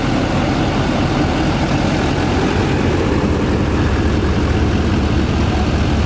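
2016 GMC Sierra All Terrain pickup's engine idling steadily.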